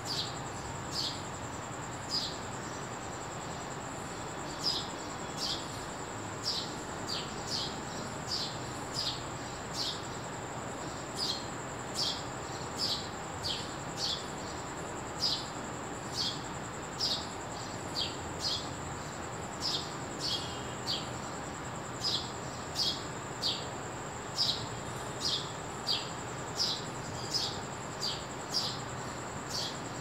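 A sparrow chirping over and over: short single cheeps, roughly one to two a second at uneven spacing. A steady high-pitched whine runs underneath.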